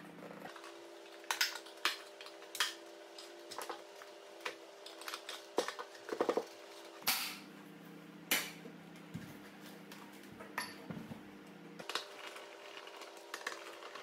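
Irregular sharp clicks and knocks of a screwdriver working the screws of a Nespresso machine's metal side panel and of the panel and plastic housing being handled as the machine is taken apart, over a faint steady hum.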